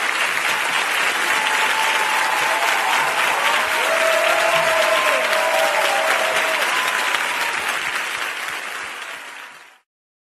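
Large live-concert audience applauding, a dense steady clapping that fades out near the end.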